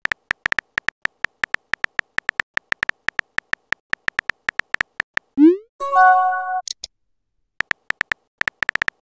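Text-message app typing clicks, a quick run of about five ticks a second for five seconds as a message is typed. Then a short rising swoosh and a brief chime as the message is sent, and a few more typing clicks near the end.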